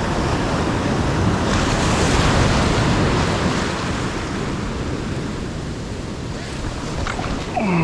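Ocean surf washing on the beach, swelling loudest a couple of seconds in, with wind buffeting the microphone. A short falling pitched sound comes near the end.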